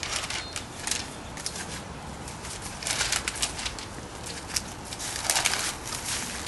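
Sheets of paper rustling and flapping as loose notes are tossed and scattered, in several crackly bursts that thicken about three seconds in and again near the end.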